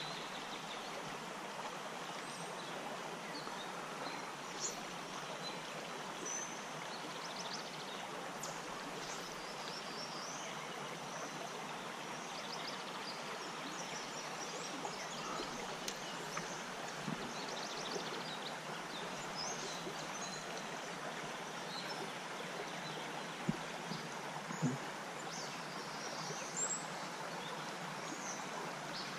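Small creek running over rocks in a steady, even rush of water, with a few faint high chirps above it and a couple of soft knocks about two-thirds of the way in.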